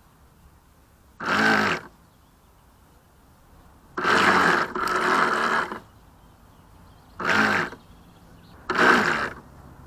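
Radio-controlled boat's electric motor throttled up in short bursts, five times, with the hull rushing through the water on each burst and near quiet in between.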